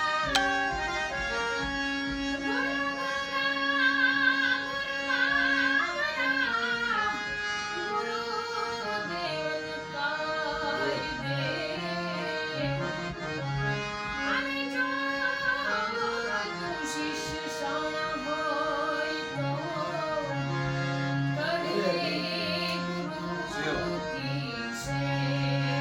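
A woman singing a Gujarati bhajan with ornamented, gliding phrases over sustained held accompanying notes that sound like a reed instrument.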